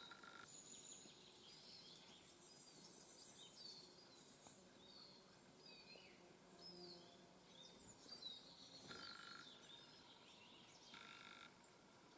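Small songbirds calling faintly: many short, high chirps and twitters scattered throughout, with a few brief lower buzzy notes in the second half.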